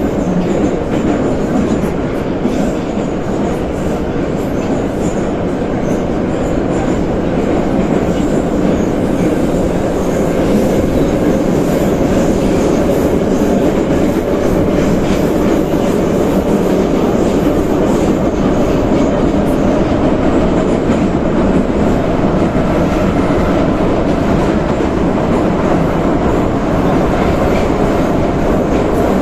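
81-717/714 metro train running through a tunnel, heard from inside at the end of the car: a loud, steady rumble of wheels on the rails and running gear, growing a little louder about ten seconds in.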